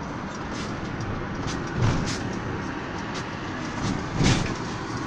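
Mercedes-Benz Sprinter minibus driving, heard from inside the cabin: steady engine and road noise, with short knocks and rattles, the loudest about two seconds in and just after four seconds.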